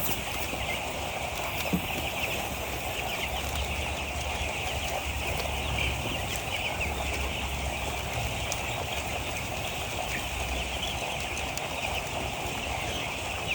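A flock of broiler chicks peeping continuously, many high chirps overlapping, over a low steady hum. One brief sharp tap about two seconds in.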